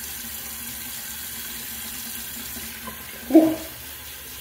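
Bathroom tap running steadily into the sink as shaving lather is rinsed off the face. There is a short pitched sound about three seconds in.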